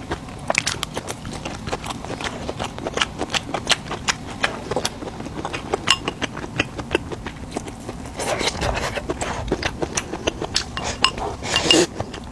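Kitchen clatter: a steady run of light, irregular knocks and clicks of utensils against a board and dishes, a few each second, with a louder knock near the end.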